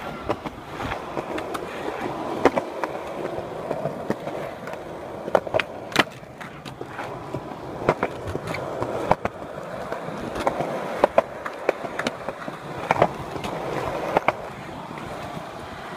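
Skateboard wheels rolling over concrete with a steady grinding hum, broken by many sharp clacks of the board, its tail and trucks hitting the ground and ledges.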